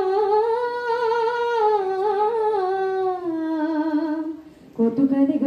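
A woman's voice holding one long wordless note of a dihanam (Assamese devotional song), wavering and slowly sinking in pitch. It breaks off about four and a half seconds in, and the singing starts again just before the end.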